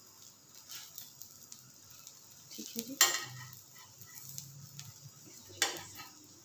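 Steel slotted spatula scraping and tapping on a flat griddle (tawa) while egg and bread fry with a faint sizzle. Two sharper metal clacks, about three seconds in and again near the end, stand out over a few lighter taps.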